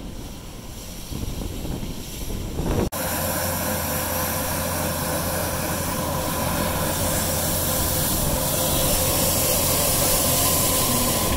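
Steady mechanical drone with a hiss over it, starting abruptly about three seconds in after a quieter stretch of street noise.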